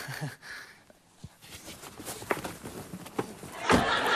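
A few light knocks and shuffles, then a Citroën C3's car door slamming shut with a thud near the end, followed by a burst of laughter.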